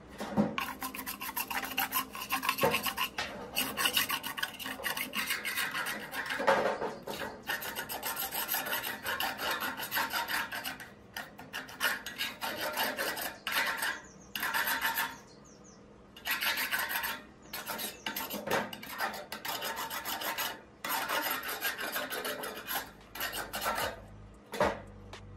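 Screwdriver tip scraping flaking paint and rust off an old bicycle pump's rusty barrel: rapid scratching strokes in runs of a few seconds, broken by short pauses.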